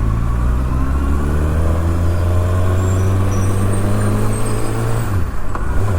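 2024 Kawasaki ZX-6R's inline-four engine running at low revs under gentle riding, its note creeping slowly higher, then dipping about five seconds in.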